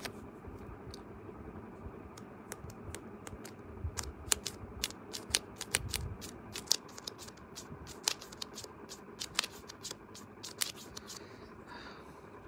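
Fingers tapping on the screen of the phone that is doing the recording, heard close through its own microphone: an irregular run of light clicks, several a second, over faint room tone, thinning out before the end.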